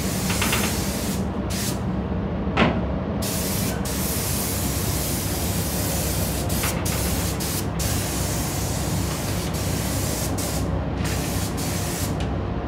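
Compressed-air paint spray gun hissing as it sprays a car body, cutting out briefly several times where the trigger is released between passes, over a steady low hum. A single brief sharp sound comes about two and a half seconds in.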